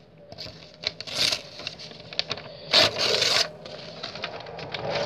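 Scraping, rubbing and clicking handling noises, with one loud rasp about three seconds in. Near the end the drone of an airplane passing over starts to rise.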